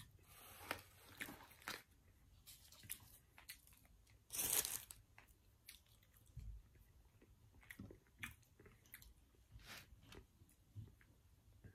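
Close-up mouth sounds of a person chewing fast-food breakfast: soft crunches and wet clicks scattered throughout. One louder noise lasting under a second comes about four and a half seconds in.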